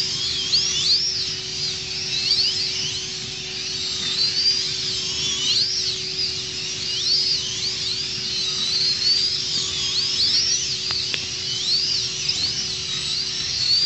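Several slot cars' small electric motors whining together on a multi-lane track, each pitch rising and falling over and over as the cars speed up on the straights and slow for the bends. A steady low hum runs underneath.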